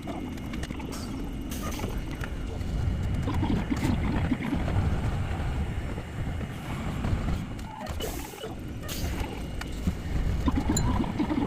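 Hankai Tramway streetcar running along its line: a steady rumble with scattered knocks and clatter from the wheels on the rails.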